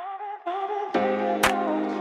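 Background music, a song's opening: a single held, slightly wavering note, joined about a second in by full chords and a drum hit.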